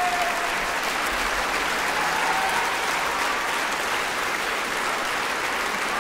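A large theatre audience applauding steadily, a dense, even clapping.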